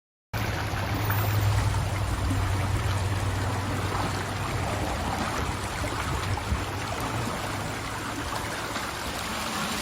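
Steady rushing of water in a flooded rice paddy with a low hum underneath, starting right after a moment of dead silence.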